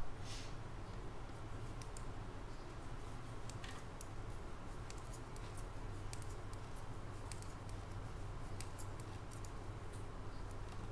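Metal circular knitting needles clicking lightly against each other while a row is purled: small irregular ticks, several a second, over a steady low hum.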